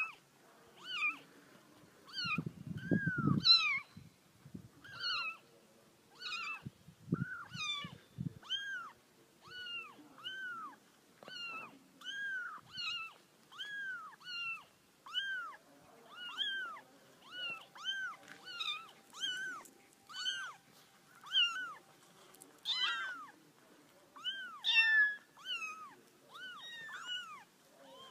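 Young long-haired kittens mewing over and over: short, high-pitched cries that each rise and fall in pitch, about one or two a second. A few low rumbling knocks come in during the first eight seconds or so.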